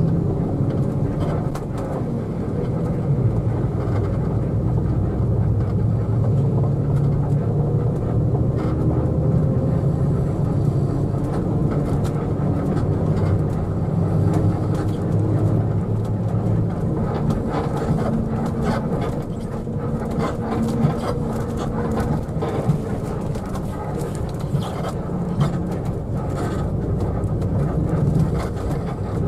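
Mercedes-Benz OH1526 coach's diesel engine running under way, heard inside the cabin with tyre and road noise; the engine note shifts about halfway through, and a couple of sharp knocks come in the second half.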